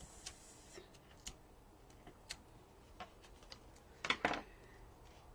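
Faint small ticks of paper and a pointed craft tool as backing papers are picked off adhesive dimensionals. About four seconds in there is a brief, louder crackle of paper.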